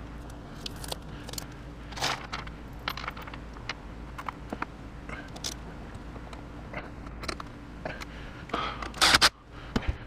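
Scattered clicks, scrapes and knocks of hands working on battery power-cable connections, over a steady low hum, with a louder clatter about nine seconds in.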